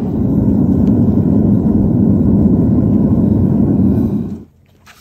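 Propane burner of a small crucible furnace running steadily, a loud low rushing noise, as it melts a crucible of scrap copper. The noise cuts off suddenly about four seconds in.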